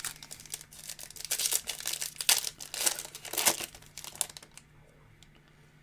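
Plastic wrapper of a trading-card pack crinkling and crackling as it is handled, in a dense run lasting about four and a half seconds that dies away near the end.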